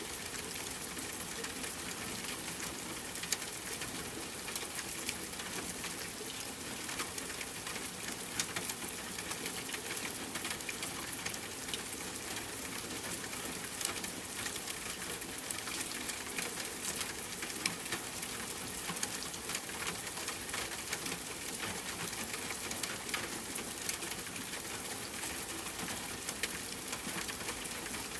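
Steady rainfall, a dense hiss of drops with sharper single drips ticking here and there.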